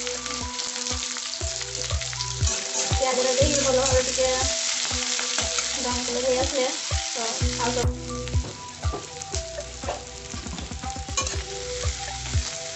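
Sliced onions and green chillies sizzling in hot oil in a black kadai, stirred with a spatula that knocks and scrapes against the pan. The sizzle eases a little about eight seconds in.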